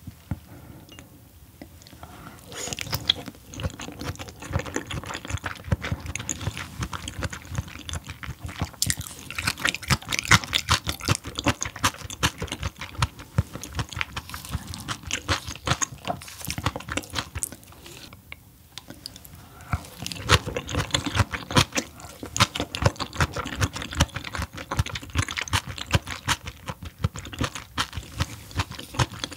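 Close-miked chewing of raw fish sashimi: a dense run of wet clicks and smacks, with a brief pause about eighteen seconds in before the chewing resumes.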